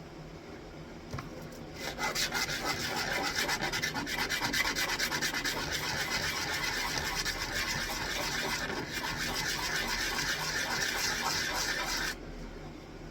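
Wood being sanded by hand: a rapid scratchy rubbing starts about two seconds in and stops abruptly near the end.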